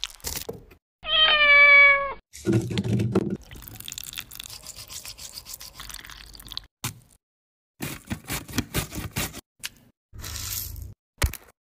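A cat meowing once: a single call about a second long, its pitch falling slightly. Before and after it come soft noise and runs of short clicks and taps from food handling.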